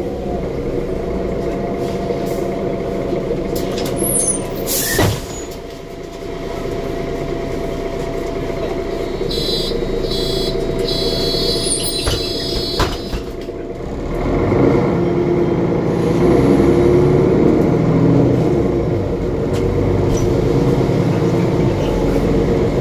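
Inside a Mercedes Conecto G articulated bus: its Mercedes OM457LA inline-six diesel runs steadily, with a sharp hiss of compressed air about five seconds in and two short runs of electronic beeping around ten to twelve seconds. From about fourteen seconds the engine comes under load and grows louder as the bus pulls away through its Voith automatic gearbox.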